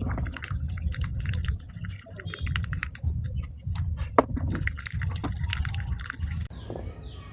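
Sticky, wet clicking and squelching of slime being stirred and worked. Near the end it gives way to a series of short falling chirps, a little under two a second.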